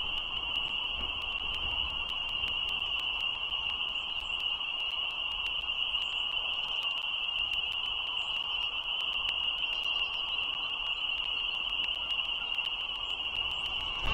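A steady, unchanging high-pitched drone over a low rumble, with faint ticks scattered throughout.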